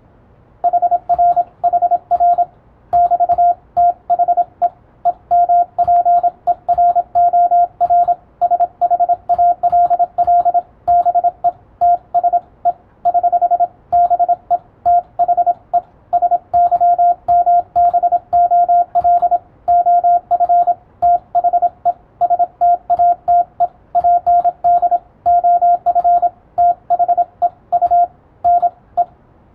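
Morse code (CW) being received: a single steady tone keyed on and off in dots and dashes at high speed, with short pauses between characters and words. It carries an English plain-language message that is being copied letter by letter.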